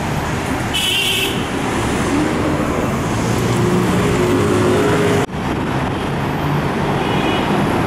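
Steady city road traffic: a mix of car and motorbike engines and tyres, with one engine's hum rising slightly in the middle. There is a brief high squeak about a second in and a sudden momentary drop-out about five seconds in.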